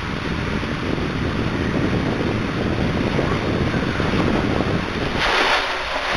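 Water rushing and splashing along an enclosed tube water slide, heard from a camera sliding down inside it. There is a louder hiss of spray about five seconds in.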